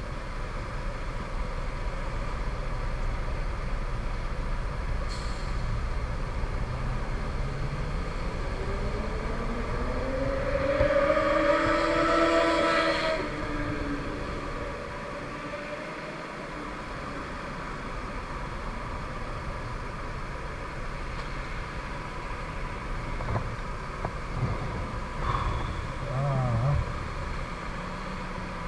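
Wind buffeting and road noise while riding a Kymco 125 cc scooter, with an engine note rising in pitch from about eight seconds in, loudest around twelve seconds, then falling away by about fourteen seconds.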